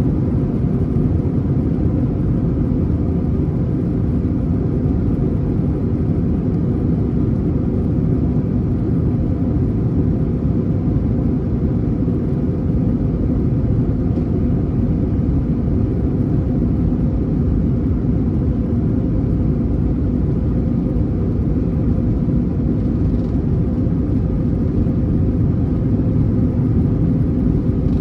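Steady low rumble of an Airbus A321 heard from inside the passenger cabin: engine and airframe noise that holds even, with no rise or fall in pitch.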